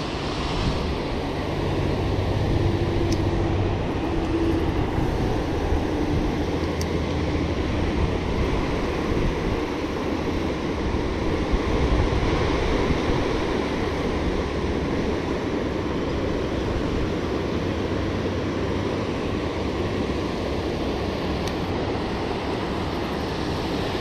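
Steady rush of river water pouring over a low-head dam, an even unbroken noise.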